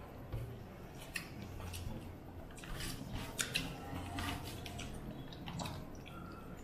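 Two people eating rice and curry with their hands: chewing and mouth sounds, with fingers mixing food on steel plates, heard as short scattered clicks over a low steady hum.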